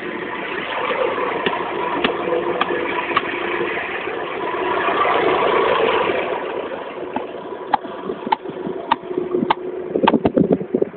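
McCormick MC 90 tractor engine running steadily. From about seven seconds in, a series of sharp hammer blows on a wooden fence post, about one every half second to second, coming faster near the end.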